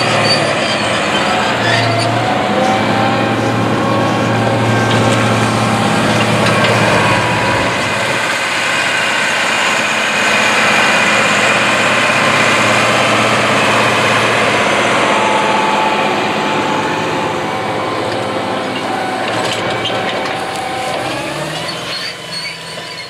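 White 4-225 Field Boss tractor's Caterpillar 3208 V8 diesel running steadily under load while pulling an 11-shank John Deere 714 mulch tiller through corn stubble, mixed with noise from the tiller's discs and shanks working the ground. It fades away over the last couple of seconds.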